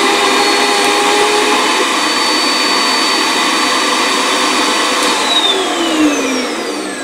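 Vacuum former's vacuum motor running with a steady whine while it draws a heated plastic sheet down over the mould. It is switched off about five seconds in and winds down, its whine falling in pitch.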